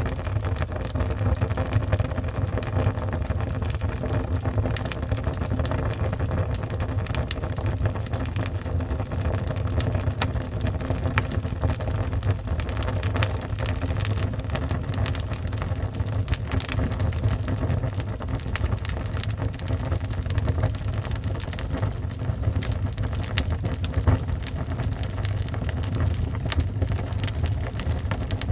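Wood fire burning in a fireplace: a steady low rumble of flames with dense, irregular crackles and pops from the burning logs.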